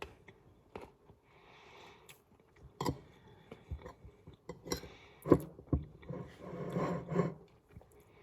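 Eating brownie with ice cream: cutlery clicking and scraping against a dish several times, with chewing, busiest near the end.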